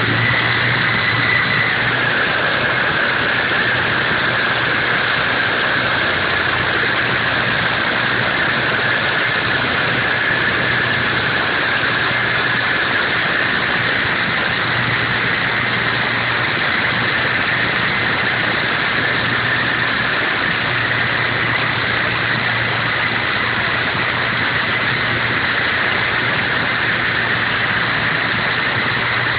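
Twister Aggressor 2.4 coaxial RC helicopter in flight, its electric motors and twin rotors running steadily: a high motor whine over a constant hiss of rotor wash and a low hum.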